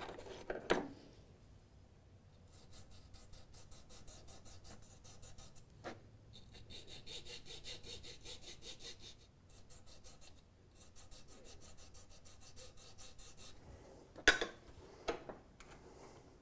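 Fine needle file scraping in quick, even back-and-forth strokes across the cut edges of a polymer front sight, smoothing them after a hacksaw cut. The strokes come in two runs with a short pause between. There are a few sharp knocks near the start and a louder one near the end.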